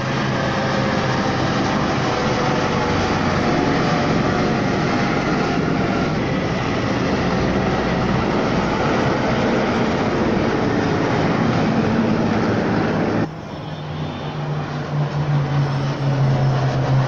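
Two military helicopters flying low overhead, a loud steady rotor and turbine noise. About 13 seconds in it cuts abruptly to a lower, wavering engine hum as two fixed-wing aircraft pass high overhead.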